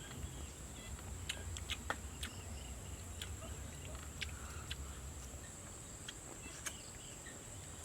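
Steady high-pitched insect drone from crickets or similar insects, with scattered light clicks over it.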